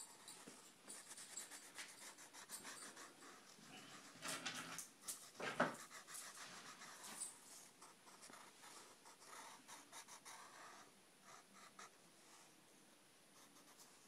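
Wooden pencil scratching on paper in short, quick strokes as a drawn outline is gone over and darkened, faint. A few louder breathy rustles come between about four and six seconds in.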